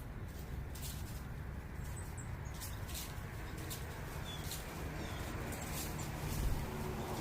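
Steady low urban background rumble with irregular soft high ticks or patter throughout, and a couple of faint, brief bird chirps.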